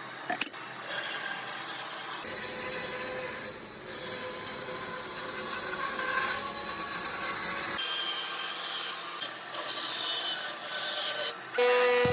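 Hand tool rubbing and scraping across wood, a steady rasping sound that changes abruptly a couple of times as short clips follow one another. A steady humming tone with overtones begins near the end.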